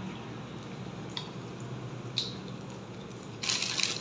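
A dog chewing and smacking its mouth on a soft piece of banana pancake, starting about three and a half seconds in. Before that there is only faint room noise with a couple of small ticks.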